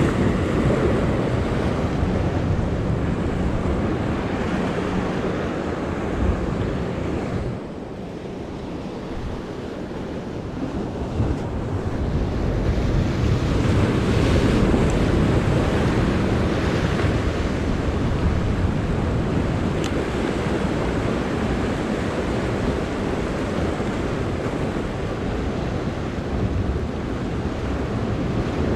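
Ocean surf washing and splashing against jetty rocks, with wind buffeting the microphone. The wash eases off about a quarter of the way through and builds back up a few seconds later.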